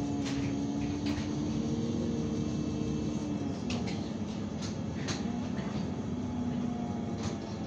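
Cabin sound of a Man Lion's City GNV city bus moving, its compressed-natural-gas engine and drivetrain giving a steady hum that rises slightly in pitch, fades after about three seconds and comes back later. A few sharp rattling clicks from the bus interior sound over it.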